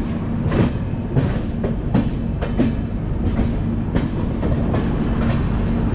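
Passenger train rolling slowly through a station approach, its wheels clacking unevenly over rail joints and points about twice a second, over a steady low hum.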